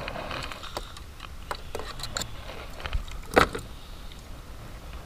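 Fishing pliers and a lip grip clicking and clattering as they are handled over a landed fish on a wooden boat, with a louder knock about three and a half seconds in.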